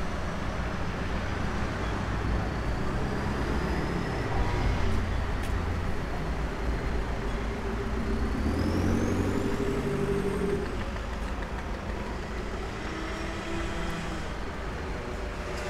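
City street traffic: a steady rumble of passing cars and heavier vehicles, swelling as one passes near the middle, with a faint rising whine.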